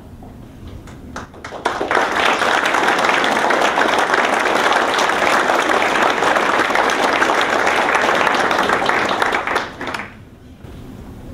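Audience applauding: a few scattered claps, then full applause from about two seconds in that dies away near the end.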